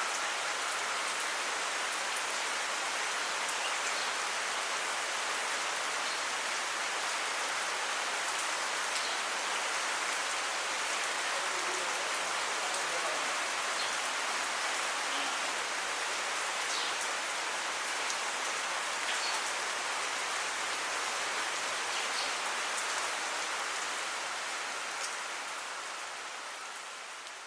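Steady monsoon rain pouring down, an even hiss with faint scattered drop ticks, fading out near the end.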